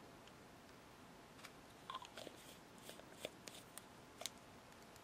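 Near silence: quiet room tone with a scattering of faint small clicks and taps from handling nail-painting tools, most of them between about one and a half and four and a half seconds in.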